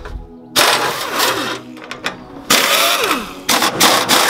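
Handheld pneumatic drill run in three short bursts, each ending with its pitch falling as it spins down.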